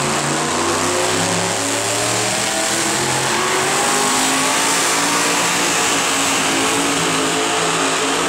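Supercharged engine of a 6,200 lb 2WD super modified pulling truck running at full throttle as it drags the weight sled down the track, loud throughout, its pitch climbing gradually.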